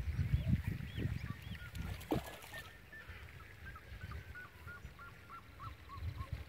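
Birds calling, with a run of short, quickly repeated calls in the second half, over a low rumble that fades after the first few seconds.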